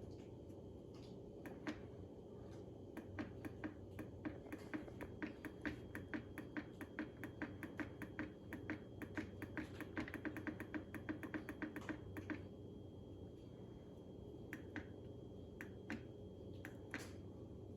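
Bosch dishwasher running: a steady low hum, with a dense run of quick ticks and clicks, several a second, from about three to twelve seconds in, then only scattered clicks.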